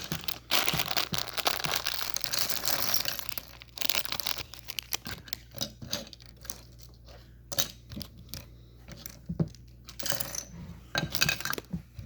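Rummaging among Lego pieces and their packaging: a crinkling, rustling stretch over the first few seconds and again near the end, with scattered small plastic clicks between.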